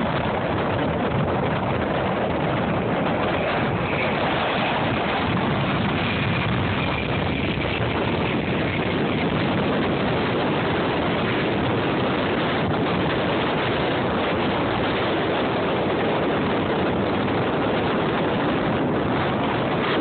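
Steady jet noise from an AirTran Boeing 717's rear-mounted turbofans climbing out after takeoff, mixed with wind buffeting the phone's microphone. A faint high engine whine runs through the first half.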